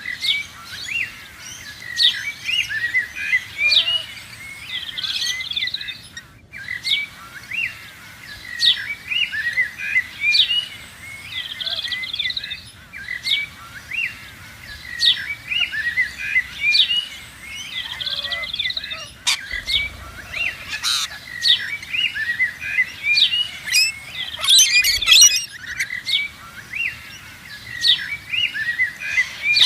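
Parrots chirping, a steady stream of many short high calls.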